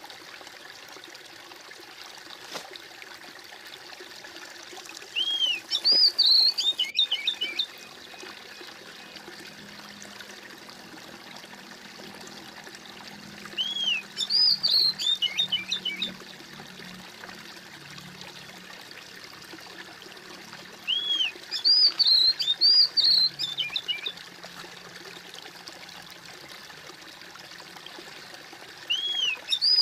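Small stream trickling and splashing steadily, with a songbird breaking in with a few seconds of quick, high chirping phrases about every eight seconds.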